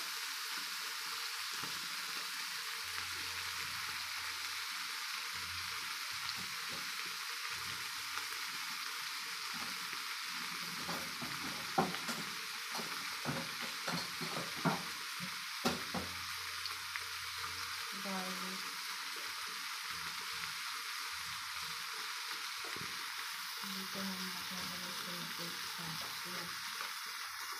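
Chicken pieces and minced garlic frying in hot oil in a pan: a steady sizzle, with a run of sharp clicks between about 12 and 16 seconds in.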